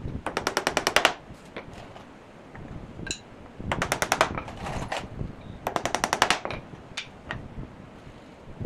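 Three quick runs of sharp clicks, about a dozen a second, each lasting under a second, with a few single clicks near the end, from the work of fixing wooden slats onto a chair frame.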